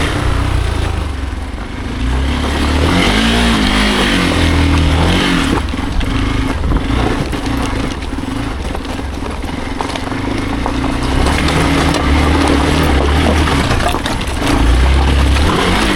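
Hero Xpulse single-cylinder motorcycle engine running while riding off-road, its pitch wavering up and down a few seconds in and then holding steady. Heavy wind buffets the microphone throughout.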